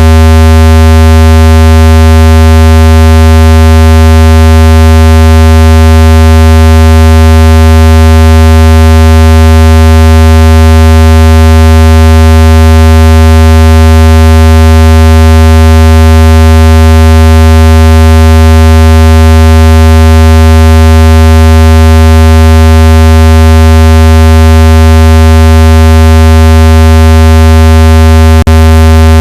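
Speaker-cleaner tone: a loud, steady low tone with a buzzy stack of overtones, held at one pitch and played at full volume to vibrate water and dust out of a phone speaker. A single brief click comes near the end.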